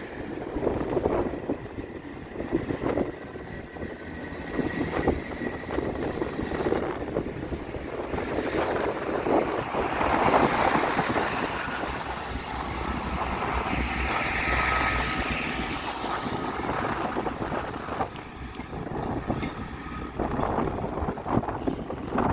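Strong gusting wind buffeting the microphone. It swells to its loudest near the middle.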